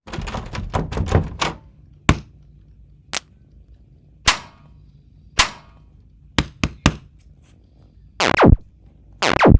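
Sharp knocks and thunks: a quick cluster at the start, then single ones about a second apart and three in fast succession, followed near the end by two fast downward swoops.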